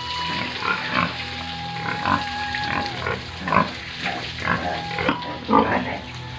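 Pigs grunting, a short grunt about twice a second.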